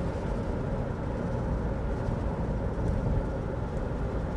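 Steady road noise of a moving car heard from inside the cabin: tyre and engine rumble, even throughout.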